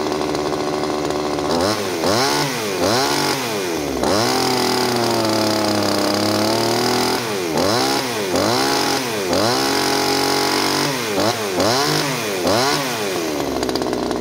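Two-stroke pruning chainsaw running and being revved: it idles, then is blipped up and down in quick throttle bursts, held at high revs for about three seconds, blipped several more times, and drops back to idle near the end.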